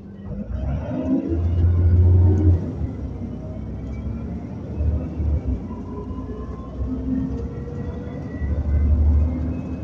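Alexander Dennis Enviro400 (Trident 2) double-decker bus heard from inside while under way: a deep engine drone that swells loudest about one to two and a half seconds in, again briefly around five seconds, and once more near the end.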